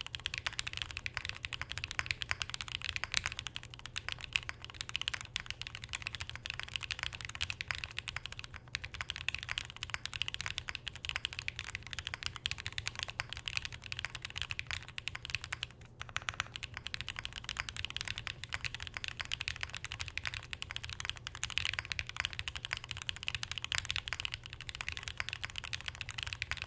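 Continuous typing on a Bear65 v2 Alice-layout mechanical keyboard with Red Jacket switches on an aluminum plate and no mods, with a short pause about midway. The keystrokes are much stronger but kinda hollow, a sign of the empty space inside the unfoamed case.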